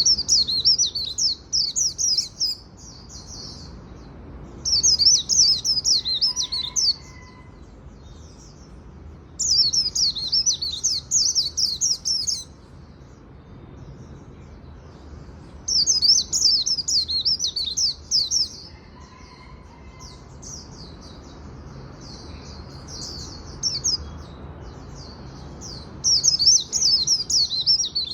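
A white-eye (vành khuyên) sings its rapid, high twittering 'líu' song in phrases of two to three seconds, with short pauses between them. About five loud phrases come, with quieter twittering in between.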